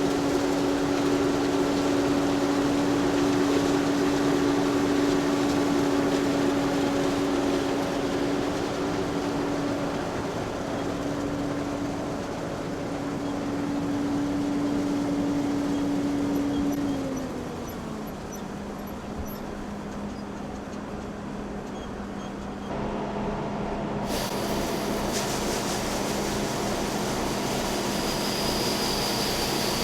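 Tractor engine running steadily under load. Its pitch drops about two-thirds of the way through as it slows down, and a steady hiss joins it near the end.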